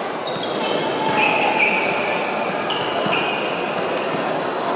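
Sports-hall din during badminton play: a steady murmur of voices echoing in a large hall, with sharp shuttlecock hits from the courts. Twice, shoes squeak high on the wooden court floor, once about a second in and again near the middle.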